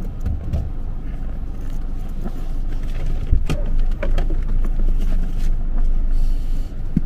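A car in motion: a steady low rumble of engine and road noise, with a few faint knocks.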